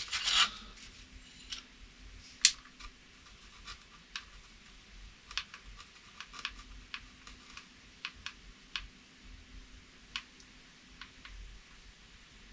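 Scattered light clicks and taps from a hot glue gun being squeezed and the foam model plane being handled while a glue seam is laid, with a brief rustle at the start and one sharper click about two and a half seconds in.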